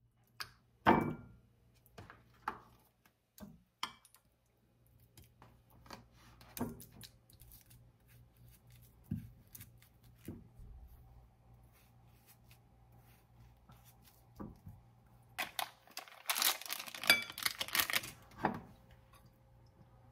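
Scattered small knocks and clicks of objects being handled in a small room, with about three seconds of dense rustling near the end.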